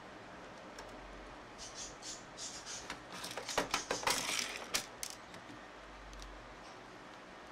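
Parts of a disassembled camcorder lens being handled by hand: a run of light clicks, small knocks and rustles as plastic and metal pieces are picked up and set down, sharpest about halfway through.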